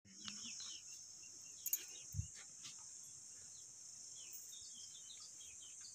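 Faint, steady high-pitched insect buzz, with scattered short bird chirps and a couple of light knocks about two seconds in.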